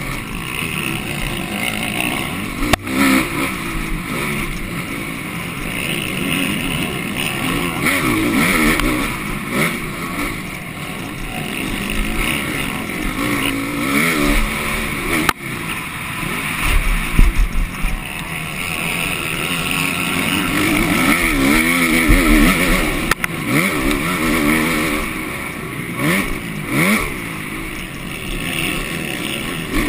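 Motocross bike engine heard from onboard, revving up and dropping back again and again as the rider opens and closes the throttle and shifts through the gears, with wind noise and a few sharp knocks from the bike hitting bumps or landing.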